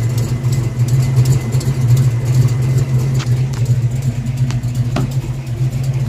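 1982 Ford Mustang GT's 5.0 V8 idling steadily, heard from under the car, with an exhaust leak at the driver's-side header that the owner calls an exhaust knock and "pretty horrible". He first blamed a cracked header primary tube and later suspected a blown-out header gasket.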